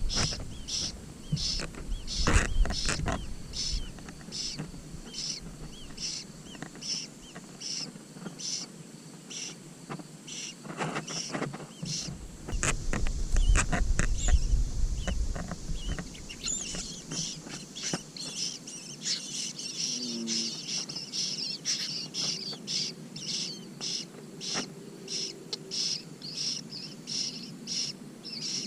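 Cuckoo chick begging with short, high, repeated chirps, about two a second, running on without a break. Low rumbles sound twice, near the start and in the middle.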